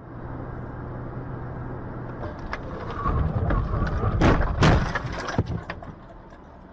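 Car collision picked up by a dashcam: steady driving noise with a low hum, then from about three seconds a rumble and several sharp, loud impacts, the two loudest close together near the middle.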